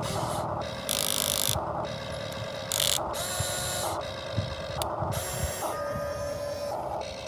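Small electric gear motors of a radio-controlled model excavator whirring in short starts and stops as its functions are worked. The pitch and level change every second or so, with a brief, sharper burst a little under three seconds in.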